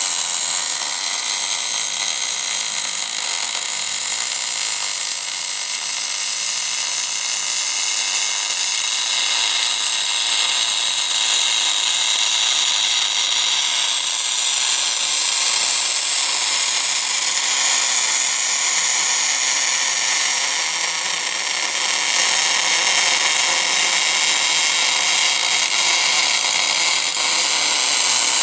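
MIG/MAG welding arc burning on cast iron in a wire-fed orbital welding setup, a loud, steady, even hiss.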